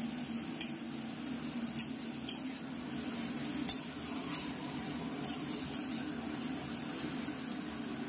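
A metal spatula stirring and scraping chopped jute leaves in an aluminium kadai, giving several sharp, irregular clinks of metal on the pan over the steady hiss of the leaves frying in oil.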